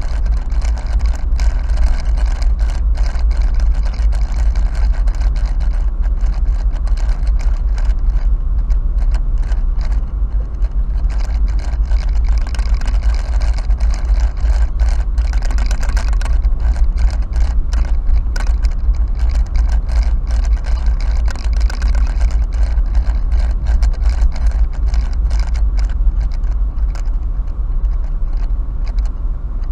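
A car driving slowly, heard from inside the cabin: a steady, loud low rumble of engine and road, broken by frequent small clicks and rattles.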